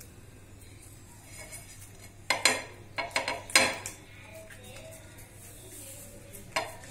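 Hand patting and pressing a ball of oiled pearl-millet dough flat on an iron tawa, with sharp metallic knocks and clinks of the pan: a cluster of them about two to four seconds in and another near the end.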